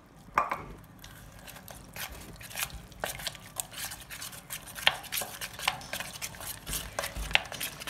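Metal spoon stirring thick chocolate cake batter in a stainless steel bowl, clinking and scraping against the bowl in quick, irregular strokes from about a second in.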